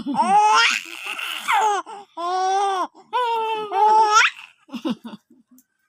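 A baby laughing hard in long, high-pitched squealing bursts, about four of them, the last sweeping up in pitch at its end, followed by a few short breathy catches.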